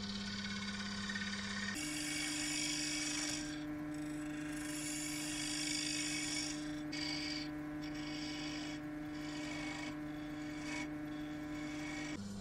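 Turning tool cutting a spinning cherry-wood bowl on a Record Power DML305 lathe: a hiss of shaving that comes in passes with short gaps, over the steady hum of the lathe motor. The hum steps up in pitch about two seconds in and drops back near the end.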